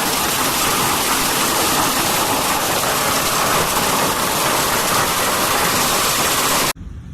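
Loud, steady roar of a violent thunderstorm downpour, which cuts off abruptly near the end.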